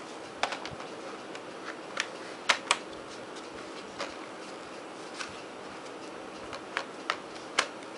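Scattered sharp plastic clicks and knocks as a battery is worked into the battery bay of an HP G7 laptop, the loudest a quick double click about two and a half seconds in, over a faint steady hiss.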